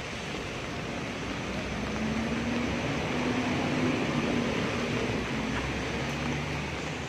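Steady hiss of rain falling on wet pavement, with a low hum that swells from about two seconds in and fades again.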